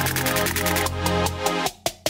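Electronic music with a fast, steady beat and held bass tones. Near the end it breaks down to a few separate hits.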